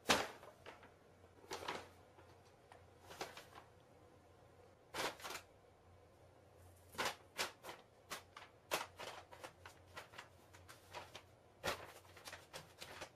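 Paper shopping bag rustling and crinkling in short, irregular bursts as a cat moves around inside it.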